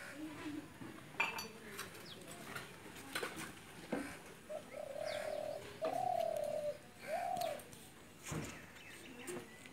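A dove cooing: three low, steady coo notes in a row about halfway through. Faint short bird chirps and light clicks sound around them.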